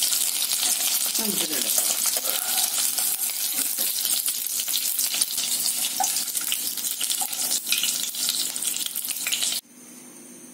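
Batter-coated boneless chicken pieces shallow-frying in oil in a nonstick pan, sizzling and crackling while a steel slotted spoon stirs and turns them. The sizzle cuts off suddenly about a second before the end.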